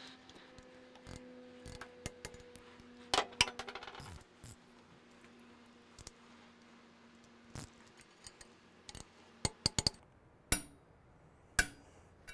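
Torque wrench and metal hand tools clicking and clinking as the engine protection bar bolts are tightened to spec: scattered sharp metallic clicks with short ringing, bunched about three seconds in and again near the end.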